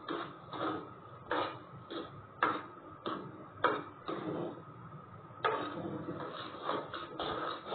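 A steel spoon scraping and stirring thick semolina halwa around an aluminium kadai, in repeated irregular strokes about one or two a second. The halwa has nearly finished cooking and is stiff enough that each stroke scrapes the pan.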